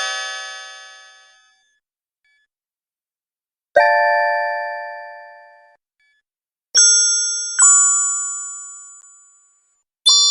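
Short magic chime sound effects: bright bell-like strikes that each ring down over about two seconds, a few seconds apart. One fades out at the start, another comes about four seconds in, two follow in quick succession near seven seconds, and one arrives just before the end. The later chimes carry a low wavering tone beneath.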